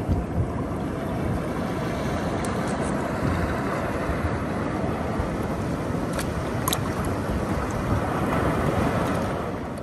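Seawater washing over shore rocks: a steady wash of noise with some wind on the microphone, easing off slightly near the end.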